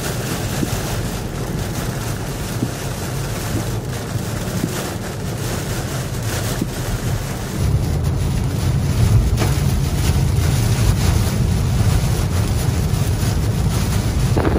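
Steady rush of wind and heavy rain with a low road rumble, heard from inside a car driving through the storm; the rumble grows louder about halfway through.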